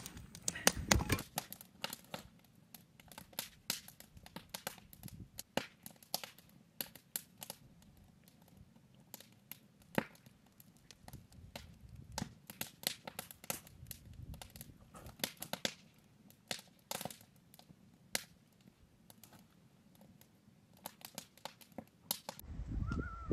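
Wood fire crackling in a small steel camp stove: irregular sharp pops and snaps over a faint background. Just before the end a canine howl starts.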